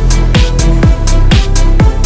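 Electronic dance music with a kick drum about twice a second, a high cymbal beat between the kicks, and a sustained bass line.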